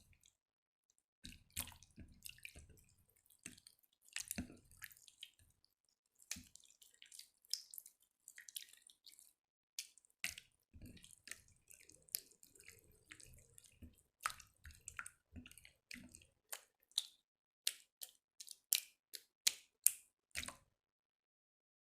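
Jiggly slime being worked by hand, making a run of wet clicks, crackles and pops; in the second half the pops come singly, about two a second.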